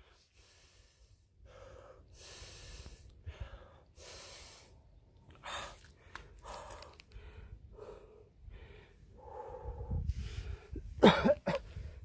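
Heavy breathing of a cyclist out of breath from a hill climb: several long, hissy breaths close to the microphone, with a louder short vocal sound near the end.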